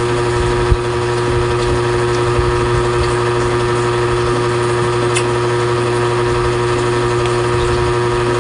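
Steady mechanical hum, a constant motor-like drone with several unchanging tones. A short click comes just under a second in.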